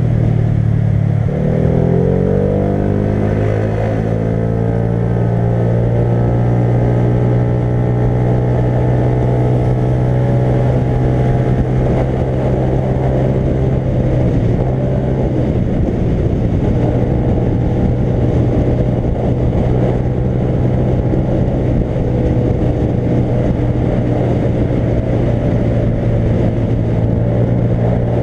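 Motorcycle engine under way. About a second in it accelerates, its pitch rising for a few seconds, then it runs steadily at a cruising speed.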